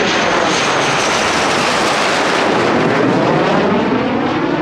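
F/A-18 Hornet fighter jet flying low overhead: loud, steady jet engine noise whose tone sweeps slowly as the aircraft passes.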